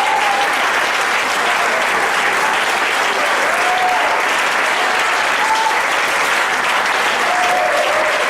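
Congregation applauding steadily, with faint voices calling out over the clapping.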